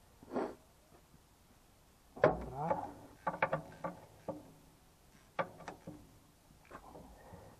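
Hand tools knocking and clicking on the metal of an Ursus C-330's hydraulic lift control valve as it is fitted. There is one loud knock with some ringing about two seconds in, then an irregular scatter of sharp metallic clicks.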